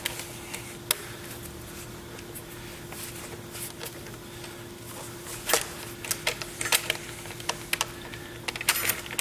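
A half-inch wrench tightening nylock nuts onto the spring-mounting bolts of a motorcycle spring seat: a few scattered light clicks at first, then a quick run of sharp clicks in the second half as the wrench is worked on the nut.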